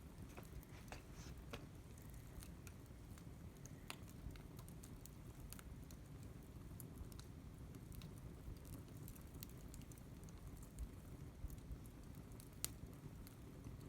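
Wood fire crackling faintly: scattered small pops and snaps over a low steady rumble, with one sharper pop near the end.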